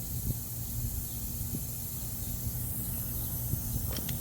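Air hissing steadily out of a tire puncture where a self-tapping screw has just been pulled, over a steady low hum and a few faint clicks.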